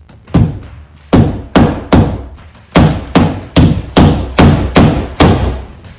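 A hammer tapping a wall anchor into a pre-drilled hole in the wall: about eleven sharp strikes, two or three a second.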